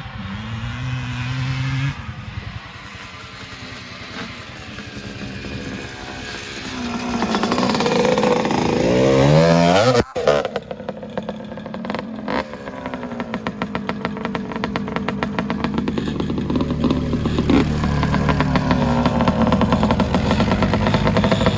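ATV engine revving and accelerating hard. Its pitch climbs steeply until about halfway through, cuts out abruptly for a moment, then picks up again and runs hard to the end.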